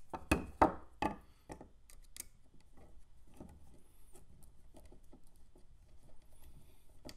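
Hard 3D-printed plastic parts being handled and fitted together as a lever goes onto a small grenade launcher: a few sharp clicks and knocks in the first two seconds, then faint rubbing and small ticks.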